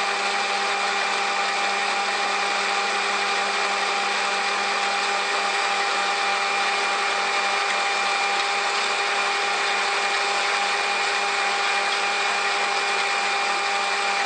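Electric stand mixer running steadily at medium speed, its whisk beating egg whites into meringue in a metal bowl. The motor gives an even whine made of several constant pitches that holds unchanged throughout.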